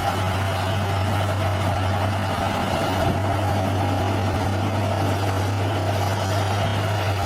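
Heavy diesel earthmoving machine's engine running steadily at a constant pitch.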